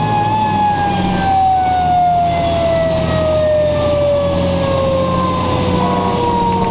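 Fire engine's siren heard from inside the cab: one long tone falling slowly in pitch, over the steady running of the truck's engine.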